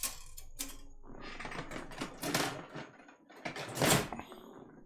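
Plastic model-kit runners (sprues) clattering and rattling against each other as a stack of them is shuffled and set down on a desk, with the loudest clatter about four seconds in.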